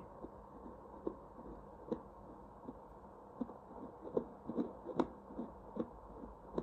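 Home fetal Doppler's loudspeaker playing the mother's own heartbeat, probe on her chest, not the baby's: soft pulsed thumps over a steady hiss, about one a second at first, then coming closer together and less regularly in the second half.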